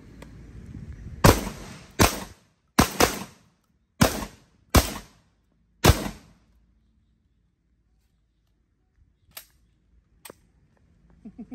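Sulun Tac-12 12-gauge shotgun firing seven shots in quick succession over about five seconds, each a sharp blast with a short ring-off. Two faint clicks follow a few seconds later.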